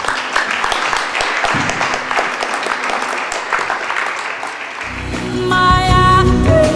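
Audience applauding with many hands, then music with a heavy bass and held notes comes in about five seconds in.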